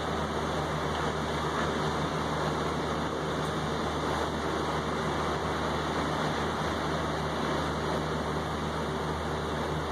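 Steady rain falling on a balcony railing and a wet table top, an even, unbroken hiss.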